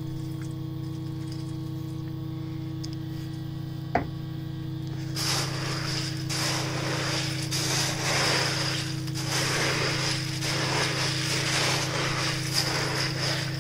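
A hand stirring K1 moving-bed plastic filter media in the water of a pond filter's bio chamber, a dense rustling and clattering of many small plastic pieces that starts about five seconds in. A steady electrical hum runs underneath, with a single sharp click about four seconds in.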